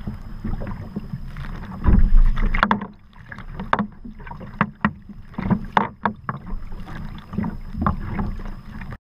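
Sea kayak paddle blades splashing into choppy water in irregular strokes, with water sloshing against the hull and wind buffeting the microphone in a low rumble, strongest about two seconds in. The sound cuts off suddenly near the end.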